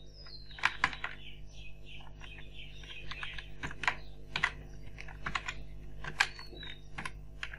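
Typing on a computer keyboard: irregular key clicks, over a faint steady hum.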